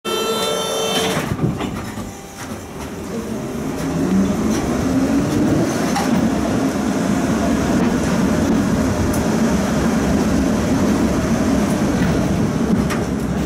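Tram heard from inside the car as it pulls away. A brief held chord of tones sounds in the first second. Then the traction motor's whine rises in pitch over a few seconds as the tram gathers speed, settling into the steady rumble of wheels on the rails.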